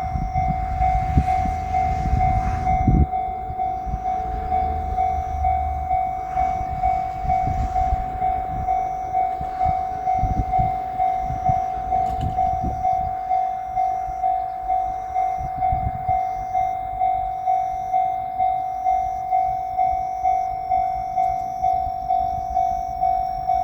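Japanese railroad crossing warning bell ringing steadily, about one and a half strikes a second. Over the first dozen seconds a JR Shikoku 8000 series limited express electric train passes, its wheels rumbling and clattering over the rail joints, then fades away while the bell keeps ringing.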